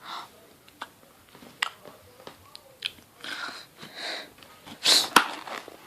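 Close mouth sounds of someone chewing and biting food: scattered sharp clicks and short crunches, with a louder burst about five seconds in.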